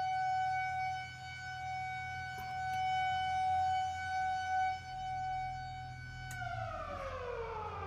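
Police car siren sounding one steady high wail for about six seconds, then winding down with a slowly falling pitch.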